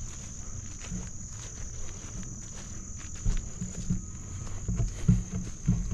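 A steady high-pitched insect chorus, with a person's footsteps thudding at uneven intervals, a few heavier steps in the second half.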